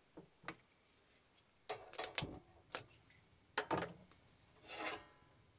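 A run of clicks and metallic knocks as a burner on a camper's gas stove is lit, ending in a brief scrape near the end.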